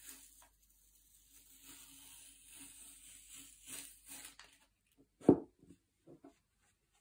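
Masking tape being peeled slowly off the edge of a paper sheet: a soft, steady hiss lasting about four and a half seconds. A single sharp knock comes about five seconds in, followed by a few faint taps.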